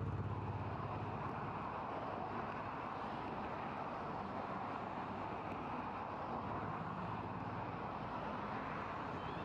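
Steady hum of city traffic, with a deeper engine drone fading out about a second in.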